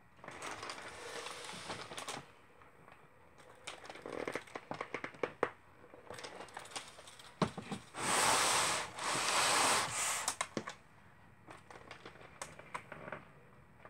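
Small tape measure in use against a picture frame: scattered clicks and taps as the steel blade is set against the mat and frame edge, and two louder rattling bursts about eight to ten seconds in as the blade slides out and back.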